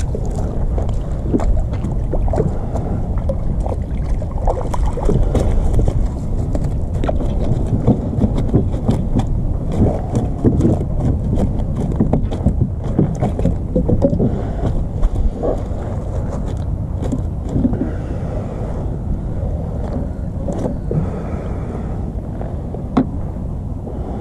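Wind buffeting the camera's microphone in a steady low rumble, with scattered knocks and taps from handling gear in a plastic kayak.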